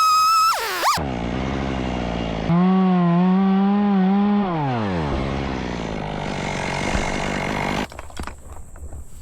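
Stihl two-stroke chainsaw revved high at the start, then let back down; it gets a second, shorter, lower rev in the middle and drops to idle. It shuts off about eight seconds in, followed by a few light clicks and knocks.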